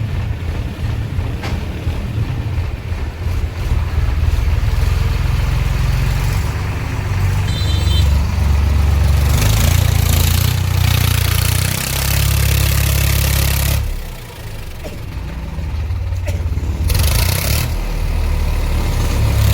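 An engine running steadily, revving up for a few seconds about eight seconds in and again briefly near the end.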